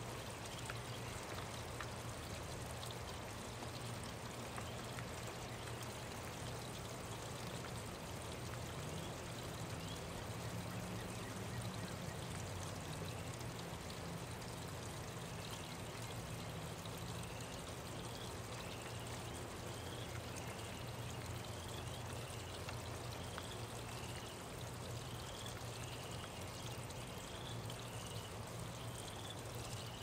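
Steady rain, an even hiss of falling and running water. From about halfway, a short high chirp repeats about once a second.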